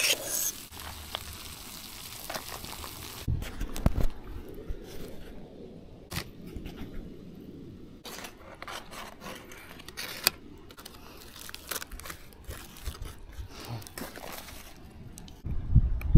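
Camp cooking handling noises: a utensil scraping rice out of a metal camp pot and aluminium foil crinkling, heard as scattered scrapes and clicks. Low rumbles come about three seconds in and again near the end.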